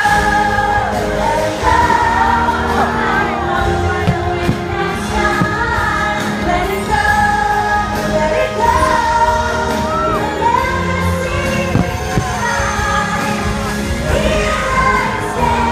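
Fireworks show soundtrack: music with singing playing continuously over the show's sound system.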